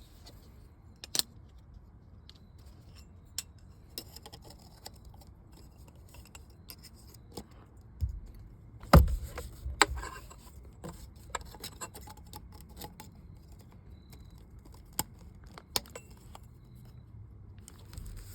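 A steering wheel horn button and its fittings being pushed and worked into place by hand: irregular small clicks, metallic rattles and scrapes, with a sharper knock about nine seconds in and a few more near the end.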